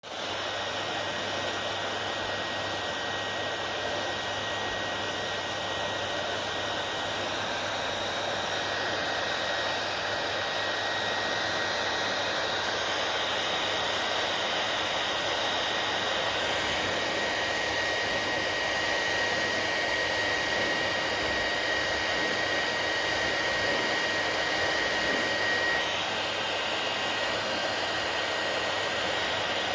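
Hair dryer running steadily: a constant rush of blown air with a thin high whine over it, and the whine stops near the end.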